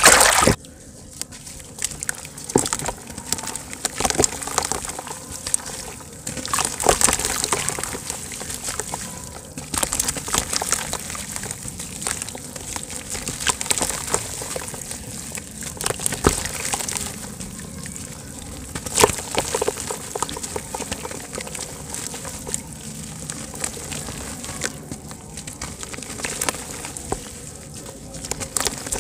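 Hands sloshing in a basin of water and crumbling soft lumps of wet dirt into it: irregular splashes, drips and crackly crumbling, with a loud splash right at the start.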